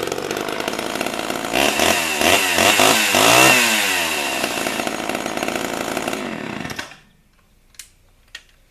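Large old Homelite two-stroke chainsaw running, revved up and down several times between about one and a half and four seconds in, then dying away about seven seconds in.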